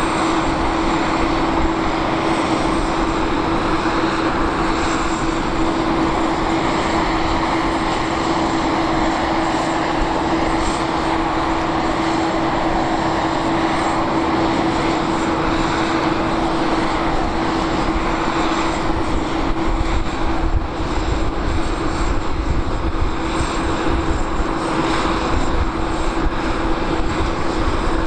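Steady running noise of a parked Avro RJ85 airliner: an even rush of sound with a constant hum held at one pitch, neither rising nor falling.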